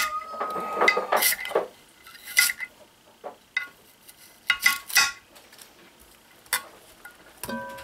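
Kitchen knife chopping carrots on a marble cutting board: sharp clacks of the blade striking the stone, coming in irregular bunches. Near the end there is a short ringing clink as the cut pieces are pushed off the board toward a cast-iron Dutch oven.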